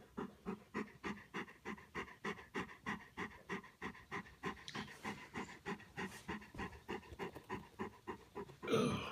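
Golden retriever panting steadily, about three breaths a second. A brief, louder burst of noise comes near the end.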